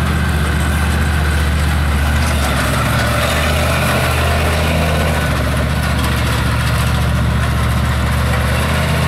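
Monster truck engine running at low, steady speed as the truck rolls slowly over dirt, its pitch dipping slightly a few seconds in and rising again near the end.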